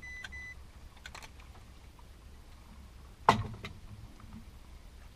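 Two short high electronic beeps, then faint clicks and one sharp knock about three seconds in as a fish is unhooked from a slow-jigging lure by hand.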